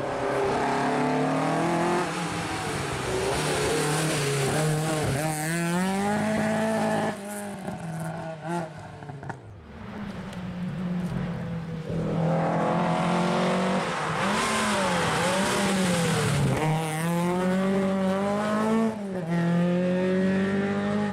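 Rally cars driven hard on a special stage, engines revving high and dropping again at each gear change, one car after another passing.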